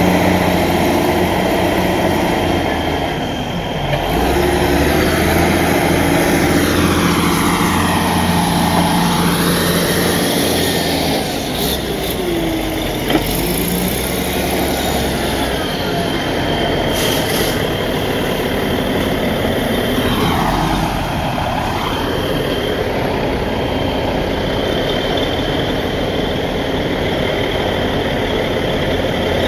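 Cat 980C wheel loader's six-cylinder diesel engine running under load as the loader works, its pitch shifting several times as the engine speed changes. A single sharp click about thirteen seconds in.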